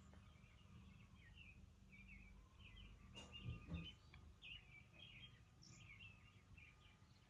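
Faint background birds chirping over a low steady hum, with a brief soft knock about three and a half seconds in.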